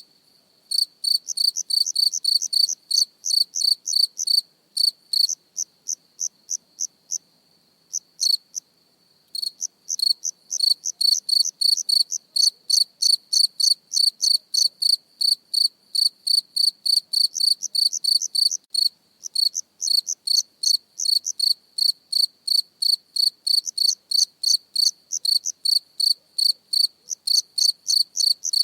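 A cricket chirping close to the microphone: a steady run of short, high-pitched pulses, about four a second, broken by a few brief pauses in the first ten seconds.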